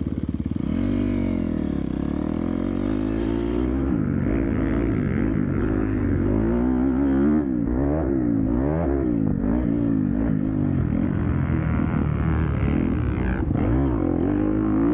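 Dirt bike engine revving up and dropping off again and again as the bike is ridden hard, the pitch rising and falling every second or so.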